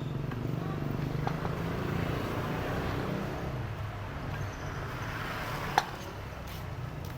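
Motorcycle engine of a homemade mini car running steadily at low speed, a little louder in the first half. A single sharp click about six seconds in.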